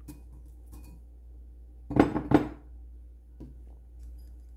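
Faint ticks of avocado cubes dropping onto granola in a ceramic bowl, then two sharp clatters of tableware about two seconds in, half a second apart.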